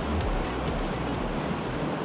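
Steady rush of a rocky river's shallow riffles, with background music fading out under it in the first second or so.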